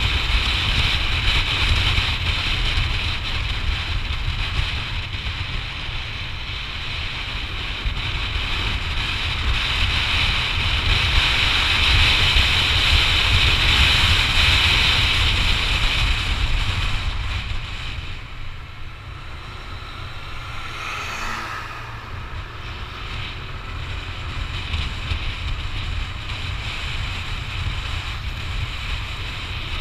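Wind buffeting the microphone while riding a Yamaha NMAX scooter, a steady low rumble with a rushing hiss over it. It is loudest around the middle and eases for a few seconds about two-thirds of the way through.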